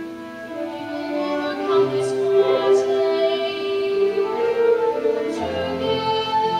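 A song from a stage musical: singers holding long notes over musical accompaniment.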